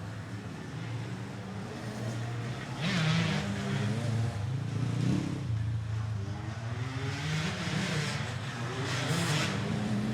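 Motorcycle engine revving several times, its pitch climbing and dropping back between revs.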